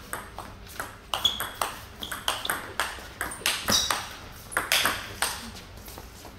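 Table tennis rally: the celluloid-type ball clicking sharply off the players' rubber bats and the table, about two to three hits a second at an uneven rhythm.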